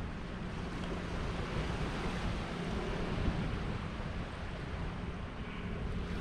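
Steady wash of small waves breaking on a sandy beach, with some wind noise on the microphone.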